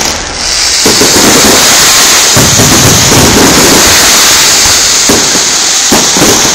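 Fireworks display: a continuous, loud barrage of shell bursts and fountain effects going off in quick succession.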